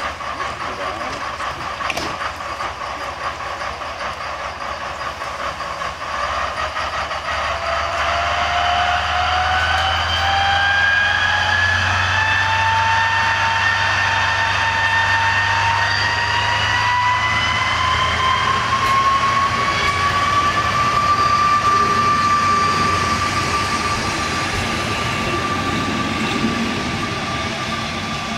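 ČD class 854 diesel railcar pulling away from the platform with its coaches: the engine hum comes up a few seconds in and a whine climbs steadily in pitch for some ten seconds as the train gathers speed, then levels off as it runs away.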